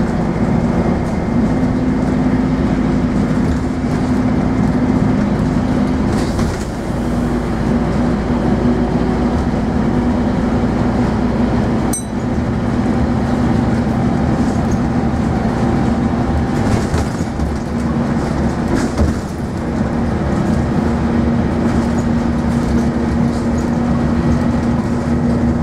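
Scania N230UD double-decker bus under way, heard from inside the saloon: a steady diesel engine drone with road and body noise. The drone dips and shifts briefly twice, about six seconds in and again around nineteen seconds, with a single sharp click near the middle.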